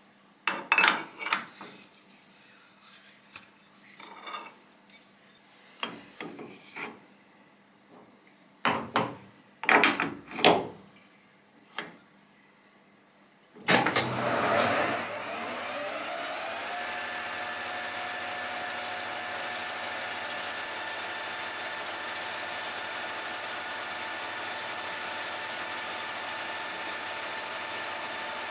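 Metal lathe: for the first half, scattered knocks and clicks of the steel workpiece being handled and clamped in the collet chuck. About halfway through, the lathe's motor starts with a rising whine as the spindle runs up to speed, then runs steadily while it turns the steel spigot.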